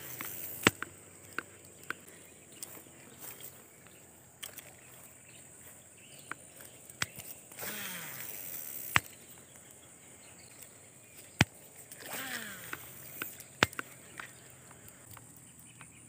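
Baitcasting reel casting twice: each cast is a whirring whine of the spinning spool that falls in pitch as the spool slows, about 7.5 and 12 seconds in, each followed shortly by a sharp click. Scattered sharp clicks from the reel and tackle come between.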